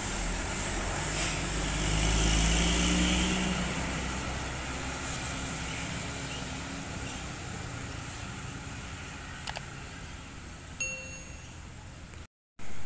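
Diesel coach bus passing close by and pulling away: a low engine rumble peaks about two seconds in and fades as the bus drives off. Near the end there is a short bell-like ding.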